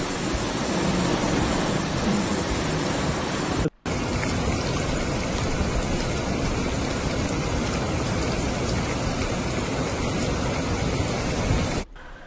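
Loud, steady rush of storm water: torrential rain and floodwater pouring through the streets. It stops dead for a moment about four seconds in, then carries on, and falls much quieter near the end.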